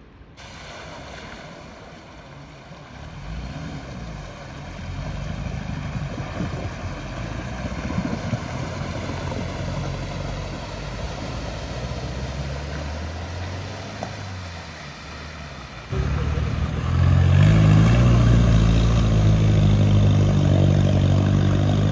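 A vehicle's engine pushing through deep floodwater at a ford, with the wash of water around it. About two-thirds of the way through it suddenly gets much louder and the engine pitch climbs as it accelerates.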